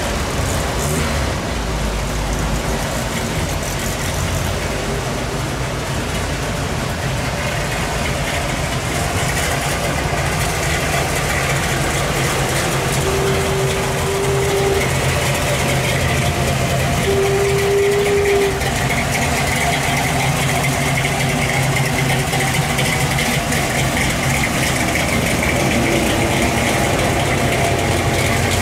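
Car engines running at low cruising speed, a steady low rumble, as a hot-rodded Ford Model A sedan and then a cowl-hooded Chevrolet Malibu roll slowly past on wet boards. About halfway through, two short steady tones sound a few seconds apart.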